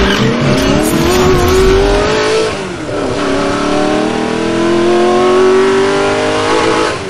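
An engine accelerating hard in two runs. Its pitch climbs for about two and a half seconds, drops sharply as at a gear change, then climbs again and starts to fade near the end.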